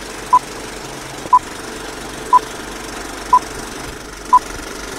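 Old film-leader countdown sound effect: a short single-tone beep once a second, five in all, over the steady whirr and clatter of a film projector.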